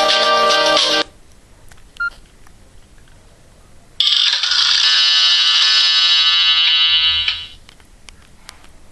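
Nokia 6124 classic mobile phone ringtones played through its loudspeaker: one ringtone cuts off about a second in, a short single beep follows, and about four seconds in another ringtone plays for about three seconds, a bright electronic tone that fades away.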